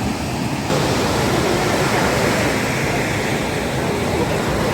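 Sea surf rushing onto a beach, a steady wash of noise that gets louder about a second in, with faint voices under it.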